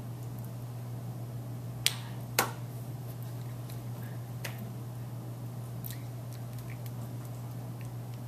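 Hands striking together while signing: two sharp slaps about two seconds in, half a second apart, then a few faint taps, over a steady low electrical hum.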